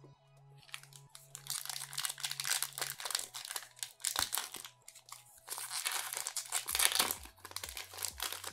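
Foil Pokémon booster pack wrapper crinkling and tearing as it is handled and ripped open by hand, starting about half a second in. Quiet background music underneath.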